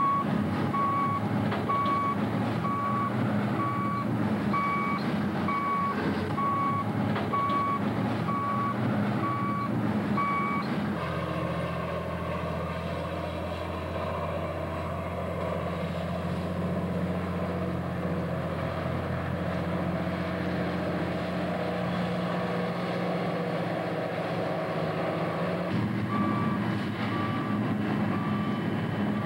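Wheel loader's backup alarm beeping steadily, about one and a half beeps a second, over its running engine. About eleven seconds in, the beeping gives way to a steady low hum for some fifteen seconds, and the backup beeping returns near the end.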